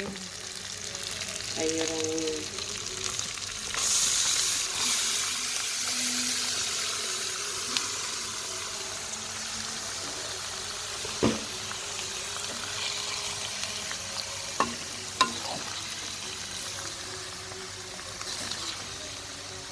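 Chopped vegetables frying in hot oil with sautéed spice seasoning, a steady sizzle that swells sharply about four seconds in as the vegetables go into the pan, then settles into an even fry. A few sharp knocks of the spatula against the pan come in the second half as the vegetables are stirred.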